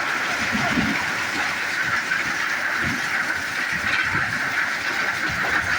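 Heavy rain falling, a dense, even hiss that holds steady throughout.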